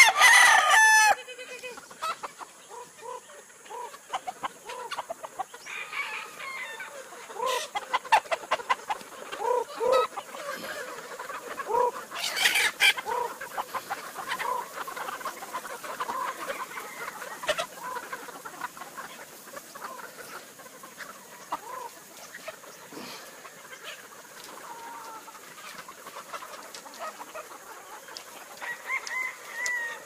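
A large flock of chickens and roosters clucking all through, with many short overlapping calls as they crowd in at feed time. A loud rooster call comes right at the start, and another about twelve seconds in.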